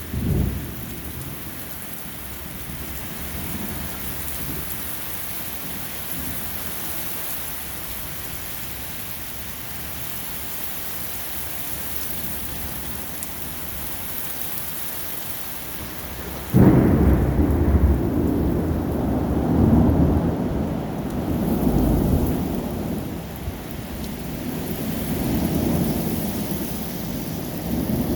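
Steady rain hiss. About two-thirds of the way through, a sudden loud clap of thunder breaks in and rolls on as a low rumble, swelling and fading several times.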